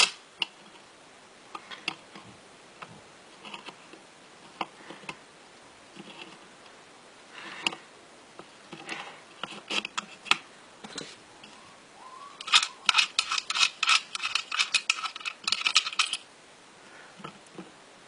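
Scattered sharp clicks and taps, then a fast run of clicking and rattling for about four seconds near the end. There is no sustained bell ringing.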